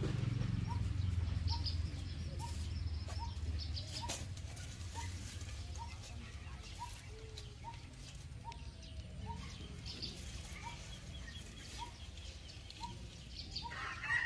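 Birds calling: one bird repeats a short rising note about twice a second, while others chirp higher now and then. Near the end a rooster begins to crow.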